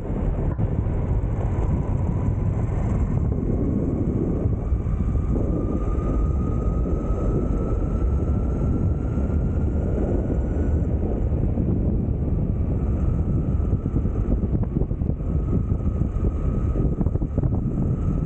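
Wind rushing over the microphone of an electric mountain board at speed, with a faint whine from its belt-driven Flipsky 6384 brushless motors that rises slowly in pitch.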